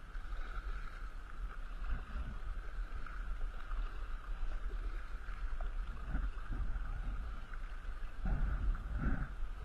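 Kayak paddle strokes in lake water beside an inflatable kayak, the blades dipping and splashing, with a low wind rumble on the microphone. A few stronger strokes come near the end.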